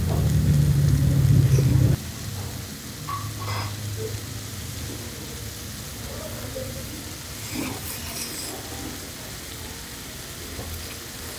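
Noodles slurped and chewed in short noisy bursts over a low background hiss. A loud, low, steady hum fills the first two seconds and cuts off suddenly.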